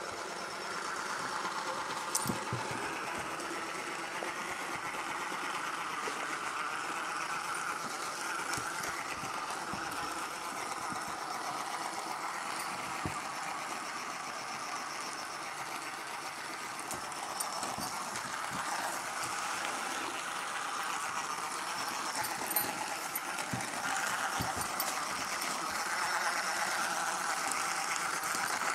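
Small battery motor of a light-up wobble ball toy whirring steadily as the ball wobbles and rolls, with a few light knocks as a puppy noses and paws at it.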